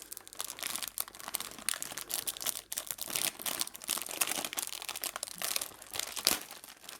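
Plastic film wrapper of an Oreo packet crinkling and rustling as it is handled, a dense, irregular run of small crackles.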